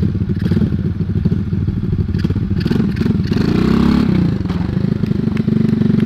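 Single-cylinder Lifan 125cc four-stroke engine in a Honda Trail 70 mini bike putting along at a crawl. It revs up briefly about three and a half seconds in, then drops back to a low putter.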